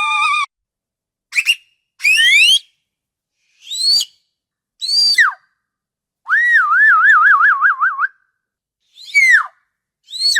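Killer whale (orca) calls: a series of short, high whistle-like calls with silences between them, some sweeping upward and others arching and falling. A longer, rapidly warbling call comes in the middle.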